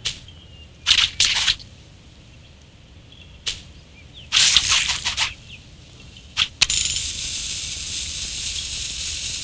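Sound effects from a mobile fruit-slicing game. Quick blade swipes and fruit splats come in short bursts, then a bomb's lit fuse hisses steadily through the last few seconds.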